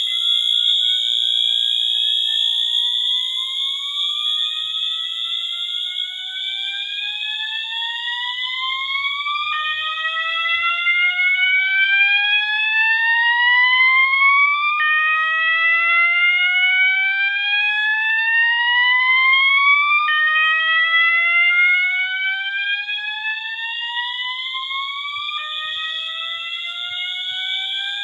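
Two fire alarm horn strobes sounding together. A Wheelock MT on continuous horn gives a steady high-pitched tone. A System Sensor MASS on slow whoop gives a rising sweep that climbs for about five seconds, drops back and starts again, about six sweeps in all.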